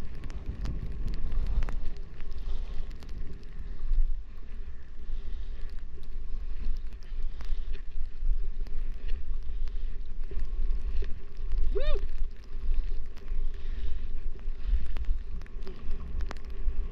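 Wind buffeting the camera microphone during a downhill ski run, over the hiss and scrape of skis carving groomed snow, with a few small clicks. About twelve seconds in comes one short pitched call that rises and falls.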